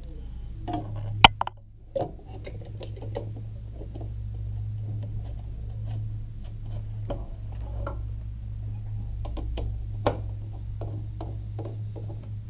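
Small clicks and taps of hand assembly: panhead screws, lock washers and a screwdriver handled against an LED light and its plastic housing, with a sharp click about a second in and another about ten seconds in. A steady low hum runs underneath.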